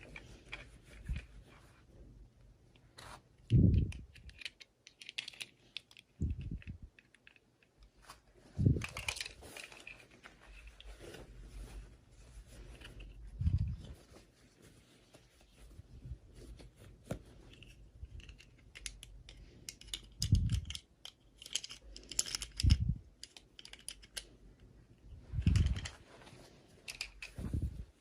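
Hands unboxing small plastic toys: irregular clicking and crinkling of plastic packaging and pieces, with several dull thumps as things are set down on the table.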